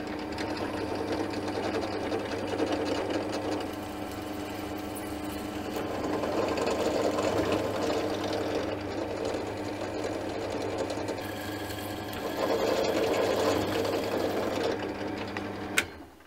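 Benchtop drill press running steadily, drilling a cross hole through a black POM plastic arbor clamped in a machine vise. The cutting noise swells twice as the bit is fed into the work, and the machine stops with a click near the end.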